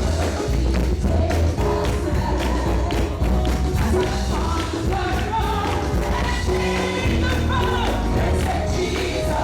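Live gospel praise music: singers over a band with a strong bass line and a steady drum beat.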